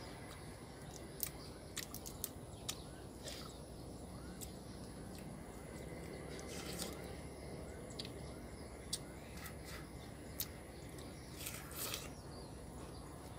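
Cooked crab shell being cracked and picked apart while eating: scattered faint clicks and snaps, a few slightly louder ones near the end, over a steady low background noise.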